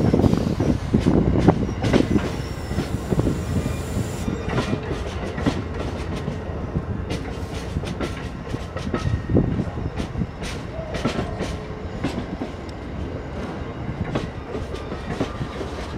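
Amtrak stainless-steel passenger cars rolling past at low speed, their wheels clicking over rail joints with a steady rumble and a brief wheel squeal now and then. The sound gets gradually quieter over the first few seconds.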